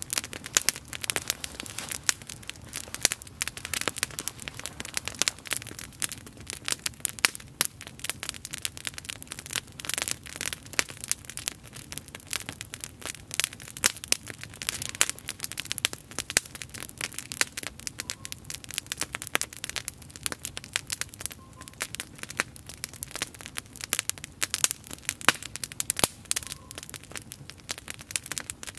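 Wood campfire crackling, with many sharp snaps and pops every second in an irregular stream.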